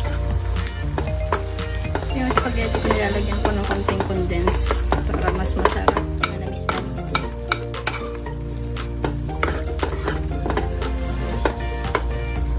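Wooden spoon stirring and scraping through thick tomato spaghetti sauce with sliced hot dogs and ground pork in a frying pan, the sauce sizzling on the heat. Irregular soft clicks of the spoon against the pan run through it.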